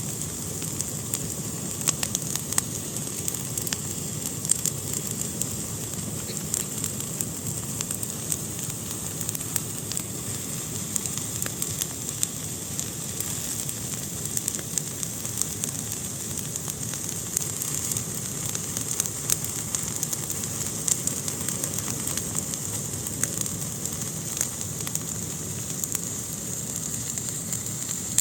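Fire burning in a fireplace: a steady low rumble of flames with frequent sharp crackles and pops at irregular intervals.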